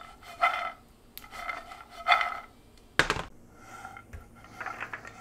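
Roasted almonds being stirred in a skillet with a utensil: repeated scrapes and rattles of the nuts sliding against the pan, which rings faintly, with a sharp knock on the pan about three seconds in.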